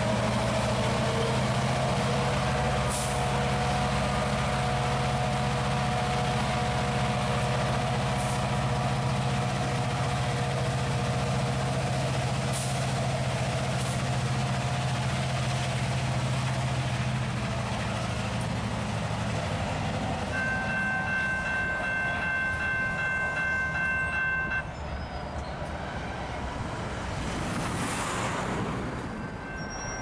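EMD SD38-3 diesel road switcher running under load, a steady low hum, as it pulls a string of covered hoppers and moves off. The hum fades about two-thirds of the way through. A ringing chord of high tones then sounds for about four seconds, typical of a train warning signal.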